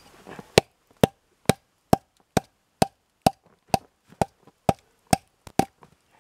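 A small axe chopping into a log in quick, evenly spaced strikes, about two a second.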